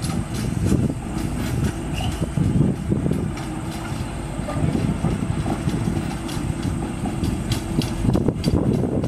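1948 GE 25-ton diesel locomotive moving slowly, its diesel engine running steadily while the wheels knock and clank over the track.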